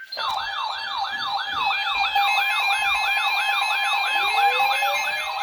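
Electronic siren-style alert sounding for a new weather warning: several siren patterns at once, a fast sweeping yelp of about three sweeps a second with a two-note hi-lo above it, starting abruptly, and a rising wail joining about four seconds in.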